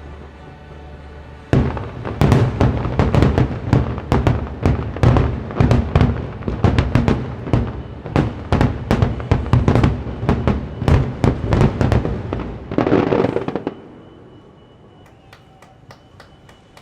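Fireworks bursting in a dense, rapid barrage of bangs for about twelve seconds, stopping abruptly, followed by a few faint scattered crackles. Show music is heard briefly before the bangs begin.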